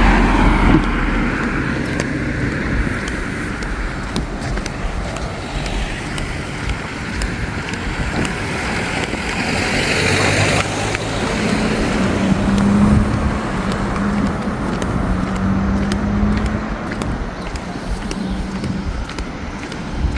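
Road traffic on a street, with vehicles passing close by. About halfway through, one passing vehicle swells and then cuts off, and after it a low, steady engine hum holds for several seconds.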